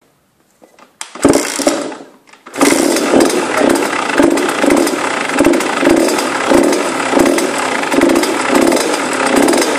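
Two-stroke engine of an HM Derapage supermotard with a 76 cc kit, heard at its aftermarket exhaust silencer. It fires about a second in, fades, then catches again at about two and a half seconds and keeps running with a regular pulse about twice a second.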